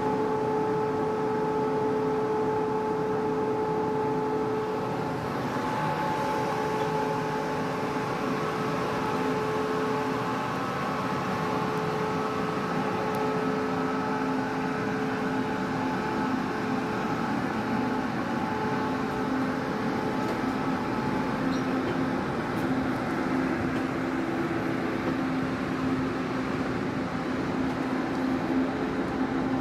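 Push-pull Tze-Chiang express train with E1000-series electric locomotives pulling out of the station. Its electrical equipment gives a steady whine of several held tones over wheel and rail noise.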